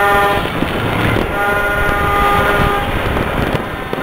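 Horns blowing long steady blasts, one just ending as the sound begins, one lasting about a second and a half in the middle, and another starting at the end, over a dense continuous crackle of firecrackers and fireworks going off across the city for New Year.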